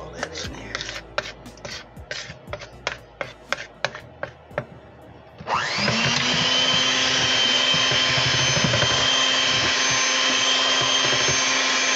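Electric hand mixer beating thick pound cake batter in a stainless steel bowl: a run of light clicks at first, then about five and a half seconds in the motor comes up to speed with a short rising whine and runs steadily.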